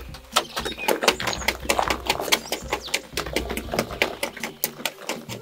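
A quick, irregular run of sharp clicks and knocks, several a second.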